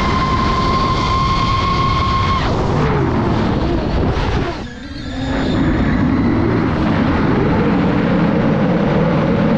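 DJI FPV drone's motors whining under heavy wind rush. The whine holds one high pitch, then falls off about two seconds in; the sound dips briefly near the middle, then settles into a lower, steady whine.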